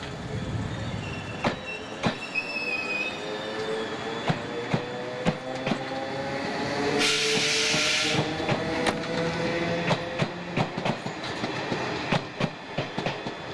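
British Rail Class 302 slam-door electric multiple unit running past along a platform: the wheels click over the rail joints while a whine slowly rises in pitch. About seven seconds in, a loud burst of air hiss lasts about a second.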